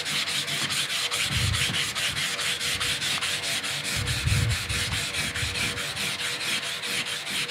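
800-grit sandpaper being rubbed by hand over a fibreglass kayak's gel coat in quick, even up-and-down strokes, about five a second, with the surface kept wet. This is the fine-grit stage of fairing out a gel coat crack repair.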